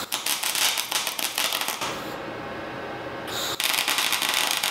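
Electric arc welding steel horseshoes: two tack welds, each a burst of sharp, fast crackling, the first about two seconds long and the second about a second and a half, with a short quiet gap between them.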